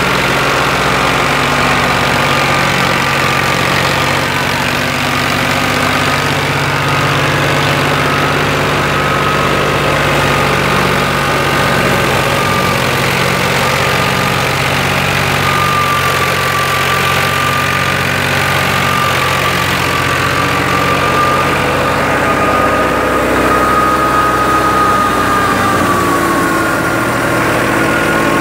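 Fiat 480 tractor's three-cylinder diesel engine running steadily, driving a wheat thresher through its PTO, with a steady high whine that wavers slightly in pitch.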